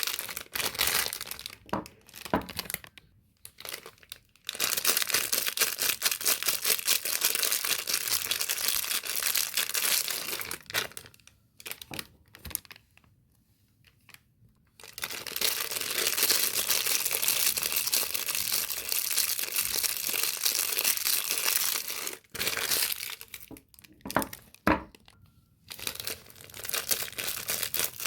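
Soap packaging being torn open and crinkled by hand: long stretches of dense crackling and tearing, broken by a few short pauses.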